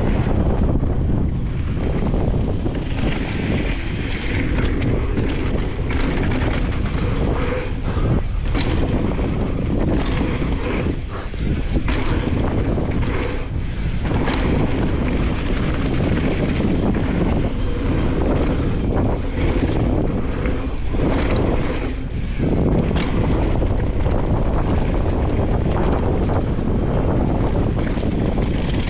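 Mountain bike riding fast down a dirt flow trail: a steady rush of wind on the GoPro's microphone and tyre noise on dirt, broken by frequent short knocks and rattles from the bike over bumps.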